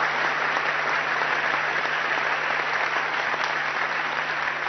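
Large seated audience applauding steadily in a conference hall.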